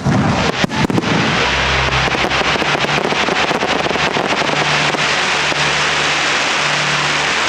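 Fireworks display: a few loud bursts about a second in, then dense continuous crackling as a barrage of gold crackling stars bursts and rains down.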